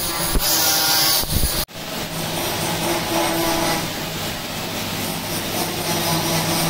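Electric buffing machine running with a steady motor hum as stainless steel is polished on the wheel. A harsher rubbing hiss sounds in the first second or so. The sound breaks off sharply about two seconds in, then the steady running picks up again.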